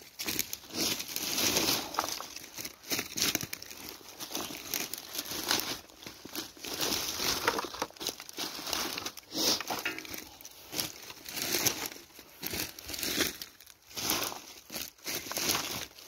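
Footsteps crunching through dry fallen leaves, twigs and grass, an irregular run of crackling steps.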